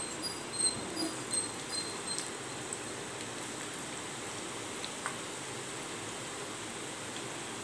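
Hot oil sizzling steadily as gram-flour-battered masala peanut clusters deep-fry in a kadai, with a few sharper spits and crackles in the first two seconds as the last pieces drop into the oil.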